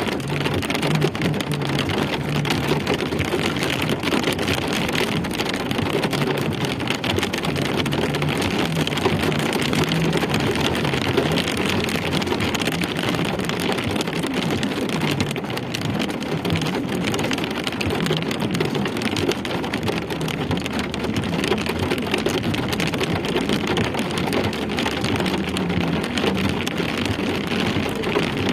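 Steady rain falling and pattering on surfaces, an even dense hiss with many small drop impacts.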